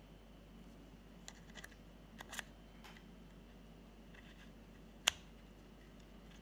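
Small machined metal parts clicking and tapping together as a piece is fitted onto the spindle of a spring-loaded mechanism: a few light clicks around two seconds in and one sharper click about five seconds in.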